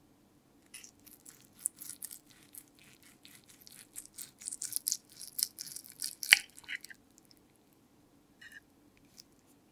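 Knife sawing through a slice of sauced meatloaf, the blade and fork scraping and clicking against the plate, with one sharp clink about six seconds in; a few light taps follow.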